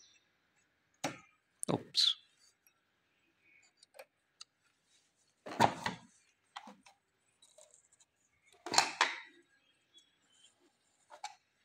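Scattered clicks and knocks of a Janome 8200 sewing machine's needle threader mechanism being worked by hand, the two loudest about six and nine seconds in.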